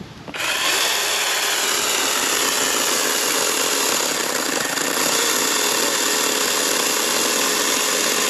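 Handife 20-volt brushless 8-inch battery mini chainsaw starting up a moment in and running steadily while its chain cuts through a small log: an even motor whine with the hiss of the chain in the wood.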